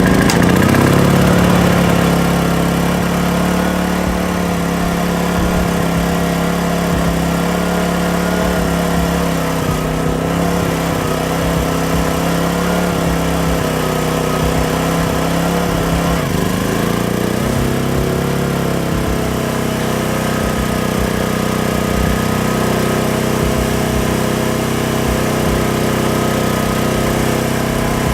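Small portable petrol generator engine catching and then running steadily, its speed settling within the first couple of seconds; about sixteen seconds in its note shifts slightly.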